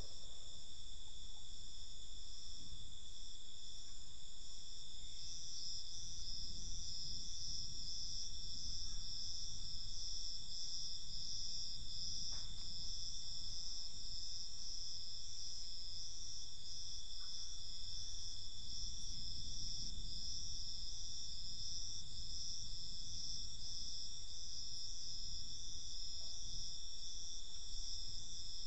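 A steady chorus of crickets trilling, with several high pitches sounding together without a break. A faint low rumble lies underneath.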